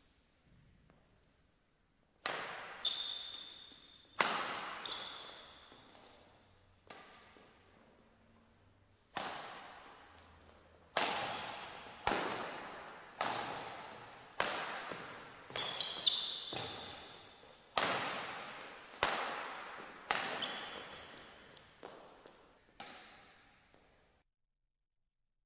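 Badminton rally in a large echoing sports hall: sharp racket-on-shuttlecock hits about every second, each ringing out in the hall's reverberation, with short high squeaks of shoes on the court. The sound cuts off suddenly near the end.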